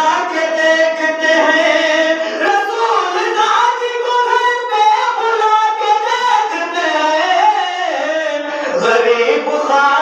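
A man singing a devotional kalam (religious poem) into a microphone, in long held and gliding melodic lines without a break.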